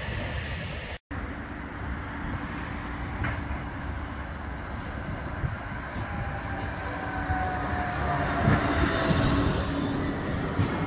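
Bombardier Flexity 2 tram approaching and passing close, over a steady hum; its drive whines down in pitch as it slows into a stop.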